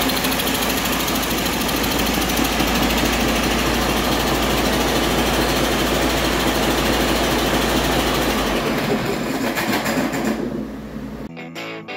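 Detroit Diesel DD15 inline-six diesel engine running steadily on a test run, with an even, fast clatter. It fades out from about nine seconds in, and a music jingle starts right at the end.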